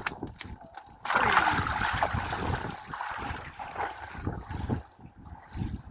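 A sea turtle released into the sea with a sudden large splash about a second in, the water sloshing as it fades over the next few seconds, over low wind rumble on the microphone.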